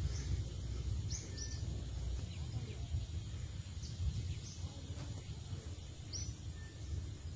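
Steady low outdoor background noise, with a few short high bird chirps: two about a second in and another about six seconds in.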